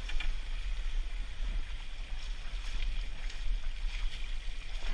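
Wind buffeting the microphone over water rushing and splashing along a moving sailboat's hull and the inflatable dinghy towed alongside it, with a few light knocks.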